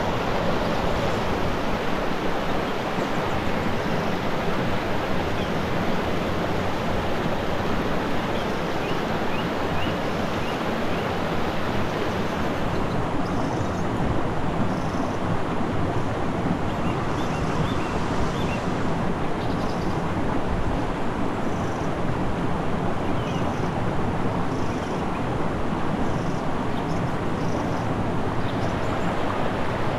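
Mountain stream rushing steadily over rocks. In the second half, faint light clicks from a hand-pumped portable espresso maker and its parts being handled sound over the water.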